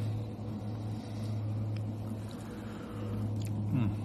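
A steady low hum, with a couple of faint short clicks and a brief low voiced murmur near the end.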